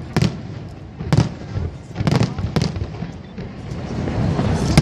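Aerial fireworks bursting in a rapid series of booms, about one a second, with crackle in between.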